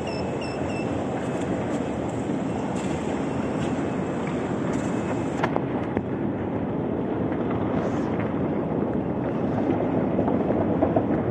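Steady rumble of a metro station hall and its running escalators, with a few quick high beeps from a turnstile card reader at the start and a single click about halfway.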